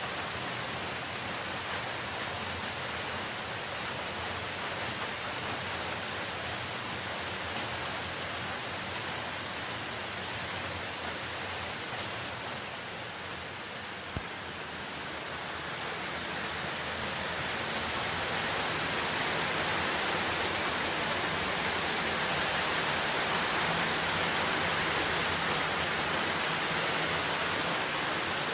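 Steady rainfall hiss that grows heavier a little past the middle, with one sharp tap near the middle.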